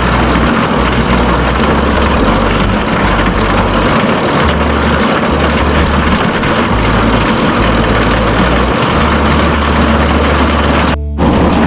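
Steady, loud machinery running, with an uneven low rumble underneath, broken briefly about eleven seconds in.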